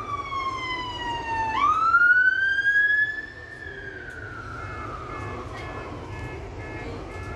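Fire engine's siren passing close by, its wail sliding down in pitch, sweeping back up about a second and a half in, then sliding slowly down again. It is loudest for the first three seconds, then drops in level as the engine pulls ahead. Steady traffic rumble runs underneath, and short evenly spaced beeps come in about halfway through.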